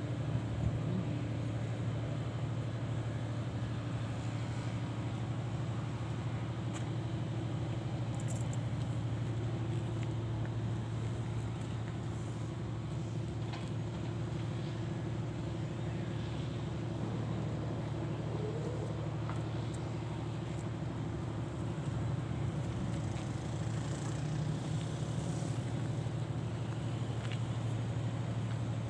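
Diesel engine of a Sany SY500H crawler excavator running at a steady idle, a low even hum.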